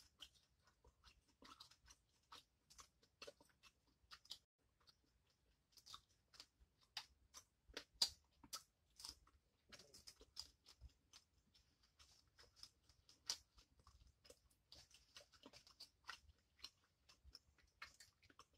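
Faint close-up chewing and crunching of boiled seafood: an irregular string of soft mouth clicks and crunches.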